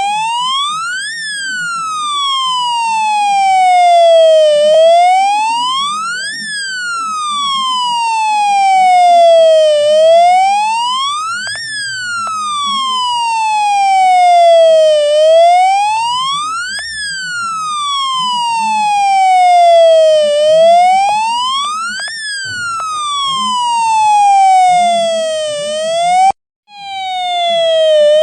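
Homemade electronic siren built around a UM3561 siren-generator chip and a transistor driving a small 4-ohm speaker, sounding a buzzy police-style wail. Each cycle rises quickly and falls slowly, repeating about every five seconds. Near the end it cuts out for a moment and starts up again.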